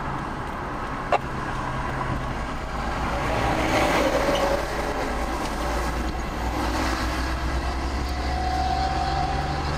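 A tractor-trailer passes close by, its engine and tyre noise swelling to loudest about four seconds in and then fading, over a steady low rumble.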